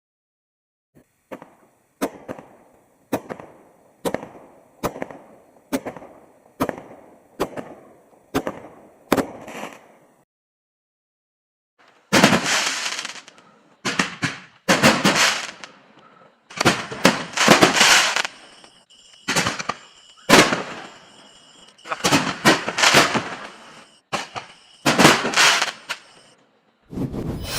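Consumer aerial firework cakes firing. About a dozen sharp shots go off, under a second apart, each fading out. After a short break, a run of louder, longer bursts follows at an uneven pace.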